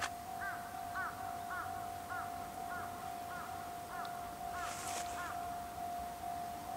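Railway level-crossing alarm sounding a steady ringing tone that pulses about twice a second, with a crow cawing about ten times in a regular series over it.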